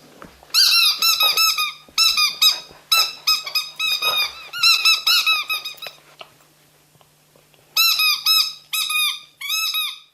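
Squeaky dog toy squeezed again and again, giving short, high squeaks several times a second in quick runs. The squeaking stops for nearly two seconds past the middle, then starts again.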